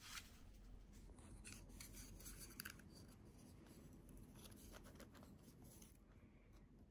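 Near silence, with a few faint light clicks and scratches between about one and three seconds in and again near five seconds.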